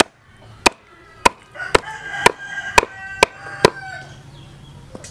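Heavy cleaver chopping raw goat meat on a round wooden chopping block: about eight sharp chops, roughly two a second, stopping near the end.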